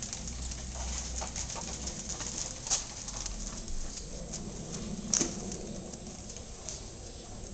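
A child's push tricycle rolling over an asphalt driveway, its wheels and frame giving scattered light clicks and rattles, with two sharper knocks, one near three seconds in and one near five seconds in.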